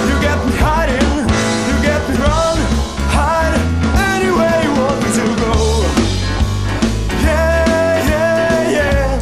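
Studio recording of a blues-rock band playing: bass and drums under a melodic lead line that slides up and down in pitch.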